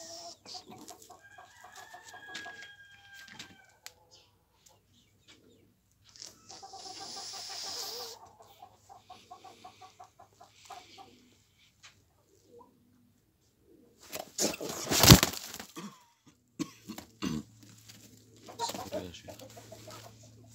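Egg-bound hen held in the hands, clucking and squawking in a string of short calls, with a loud burst of wing flapping about three-quarters of the way through.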